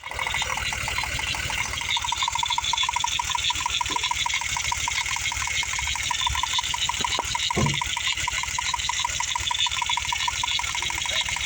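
VW VR6 six-cylinder engine idling with a steady, even pulse and a misfire, brought on by a little water getting into the ignition.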